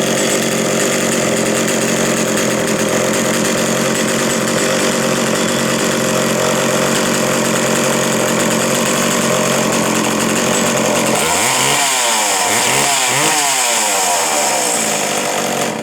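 An 82 cc McCulloch Super Pro 81 two-stroke chainsaw running steadily at high speed, then revved up and down several times near the end.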